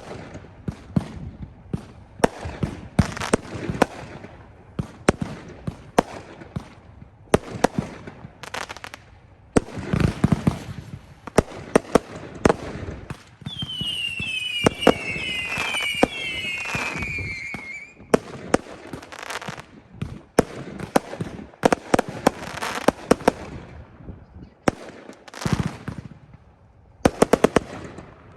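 Consumer firework cakes firing in a rapid, irregular series of launch thumps and bursting bangs. From about 13 to 18 seconds in, dense crackling comes with several overlapping whistles falling in pitch.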